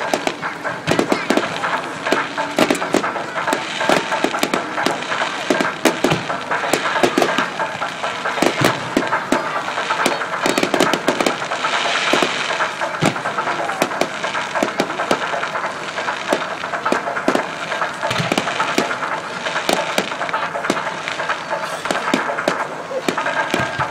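Fireworks going off: a dense, continuous run of bangs and crackles, with the crackling thickest about halfway through.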